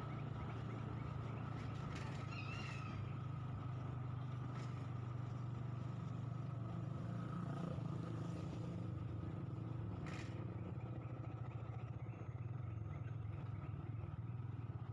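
Motor vehicle engine running at a steady speed, a low even hum, while travelling along the road, with a brief high chirp a couple of seconds in and a short click near two-thirds of the way.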